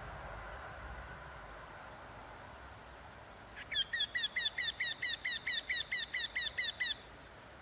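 Eurasian wryneck singing: a run of about fifteen repeated notes, evenly spaced at about five a second, starting about halfway through and lasting about three seconds.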